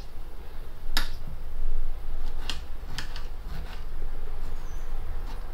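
Kitchen knife chopping a tomato on a granite cutting board: a few sharp, irregular clicks as the blade strikes the stone, over a steady low hum.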